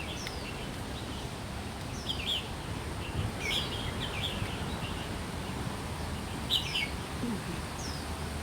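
Small birds chirping outdoors, with short falling chirps repeated about once a second and bursts of quicker chirping, over a steady low background rush.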